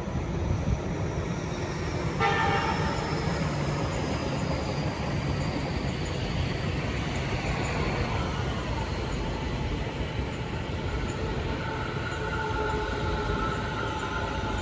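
Tobu Tojo Line electric train running on the line, with a short horn toot about two seconds in. A high whine falls slowly through the first half, and steady whining tones come in near the end.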